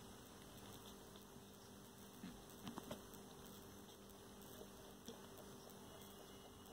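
Near silence: a steady low hum, with a few faint short clicks and rustles about two to three seconds in and once more about five seconds in.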